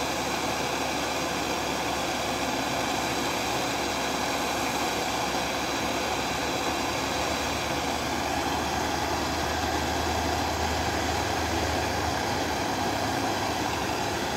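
Gas torch burning with a steady hissing rush of flame while it heats the head of an engine valve.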